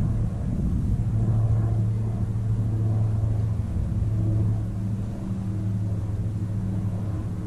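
A steady low engine hum, with wind rumbling on the microphone.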